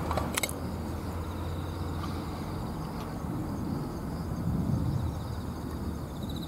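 A man gulping a drink from a stainless steel bottle, the swallowing loudest around four to five seconds in, after a quick double click near the start. Under it runs a steady low outdoor rumble with faint insects chirring.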